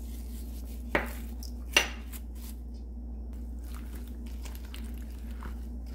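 Cubes of radish being tossed by a gloved hand in thick, wet chili-paste seasoning in a stainless steel bowl: soft squishing and clacking, with two sharp knocks against the bowl about one and two seconds in.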